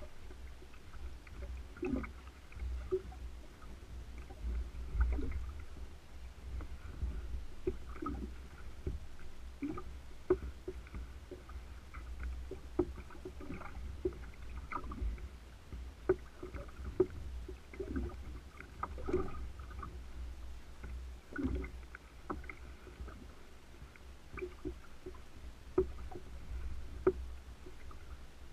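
Small waves lapping and slapping against a sea kayak's hull over a steady low rumble, with scattered light knocks and clicks at irregular times.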